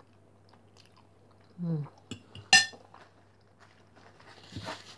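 A metal fork clinks sharply against a ceramic plate about two and a half seconds in, ringing briefly, with a softer tap just before it. A short low falling murmur from the eater comes just before the clink, and a brief bit of chewing comes near the end.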